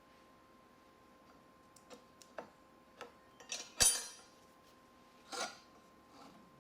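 Scattered small clicks and taps from handling objects, the loudest a sharp click a little past the middle, with a short rustle later, over a faint steady electrical hum.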